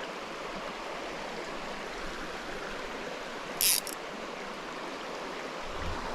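A small creek running steadily over riffles and fast water. About halfway through there is one brief, high hiss in two quick parts.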